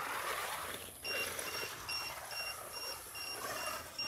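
A 1/12-scale RC crawler's electric motor and drivetrain whir as it drives over grass. From about a second in, a steady run of short high beeps sounds, about two and a half a second, which the driver takes for the low-voltage warning of the car's LiPo battery.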